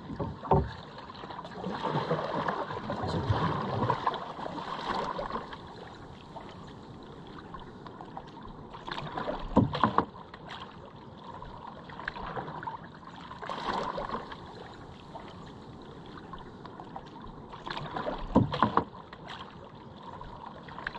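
A wooden paddle pulling through the water beside a small outrigger canoe, with a splashing stroke every four or five seconds and a few sharp knocks in between.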